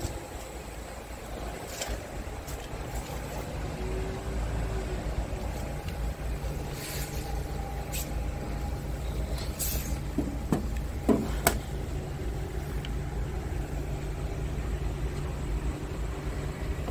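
A low, steady vehicle rumble with a faint hum, broken by a few sharp clicks and knocks, the loudest about ten to eleven seconds in.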